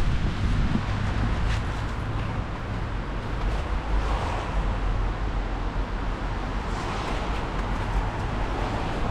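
Street traffic noise: a steady low rumble of cars passing along a city road.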